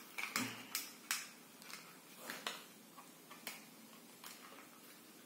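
Small sharp clicks and taps from handling a headlamp with its batteries just loaded: about half a dozen clicks in the first three and a half seconds, fewer and fainter after.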